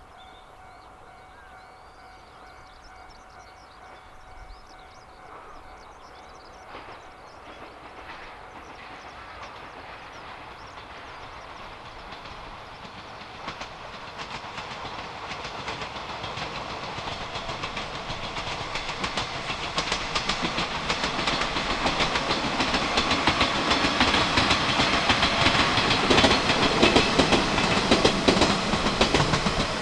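A Yoro Railway electric train approaching, its sound growing steadily louder, with the wheels clattering over rail joints loudest in the last few seconds.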